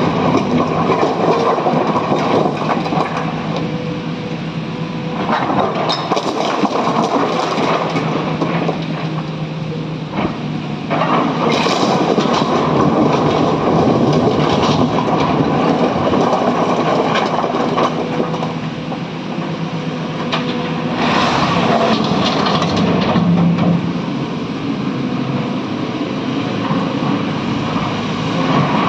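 SANY excavator's diesel engine working under load, rising and falling as it digs and swings, with clatter and brief hissing surges while loading a Tata Prima tipper truck.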